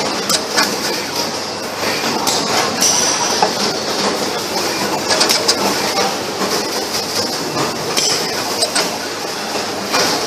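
Automatic flux-and-soldering machine for transformers running: a steady mechanical clatter with frequent clicks and clinks from its moving parts.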